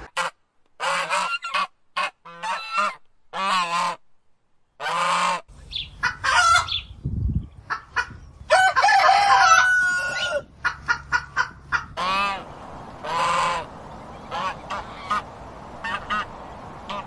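Domestic fowl calling: a run of short, repeated honking calls with gaps between them, and one longer, louder call with a held note about halfway through.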